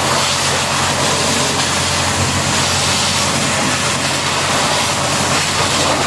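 High-pressure water jet hissing steadily as it blasts mud off a Caterpillar 992K wheel loader's tyre and bodywork, over a steady low machine hum.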